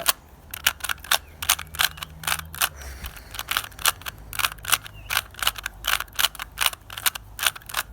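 Rubik's cube being turned fast, its layers snapping round in quick clacking clicks, about three a second, as the same two turns (R, U) are repeated over and over.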